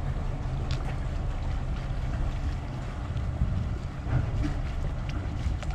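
Low, steady rumble of a 1998 Luhrs 360 Tournament's twin Yanmar diesel engines as the boat moves slowly across the marina, with wind buffeting the microphone.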